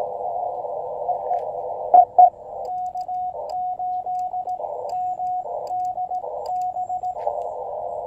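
Elecraft KX2 transceiver's CW audio through a small portable speaker: band hiss squeezed into a narrow filter, with two short loud tone blips about two seconds in. From about a third of the way in, Morse code is sent on the paddle for about four and a half seconds as a single steady sidetone keyed into dots and dashes, with the hiss heard between the elements. The plain hiss returns near the end.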